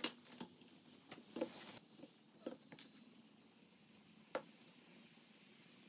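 Faint, scattered light taps and clicks of small plywood parts and a plastic glue bottle being handled on a workbench, with one sharper click about four seconds in.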